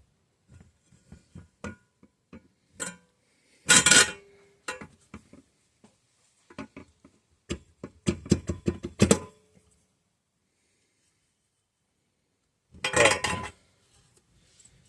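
Steel engine parts clinking and knocking together as a crankshaft is worked into a small 196cc single-cylinder engine block. There are loud clattering clanks with a brief ringing about four seconds in and again near the end, and a quick run of knocks in between.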